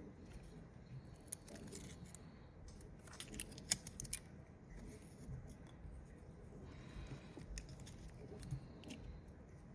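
Faint scattered small clicks and taps of hand work on a microwave-oven transformer's primary winding, with a cluster of sharper clicks about three to four seconds in.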